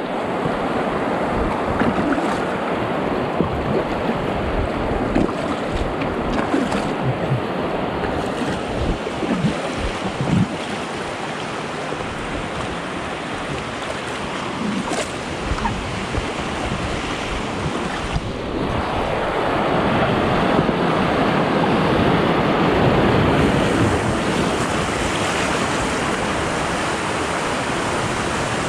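River rapids rushing and splashing around a small inflatable boat running a corner of the river; the rush swells louder about two-thirds of the way through, then settles.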